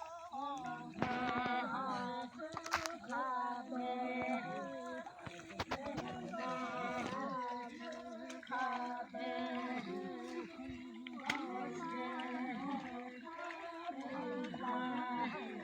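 Voices singing a traditional work chant a cappella: a wavering melody over a steady held low note, with a few sharp knocks scattered through it.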